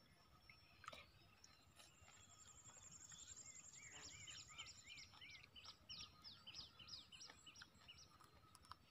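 Near silence with faint birdsong: a thin high trill, then a run of quick repeated whistled notes, about three a second, over a few faint clicks.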